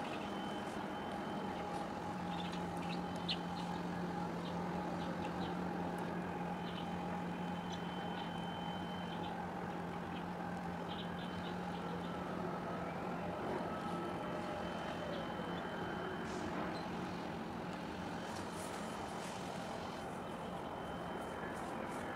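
Steady harbour ambience: a low, even drone of machinery with a constant hum, and faint high chirps off and on.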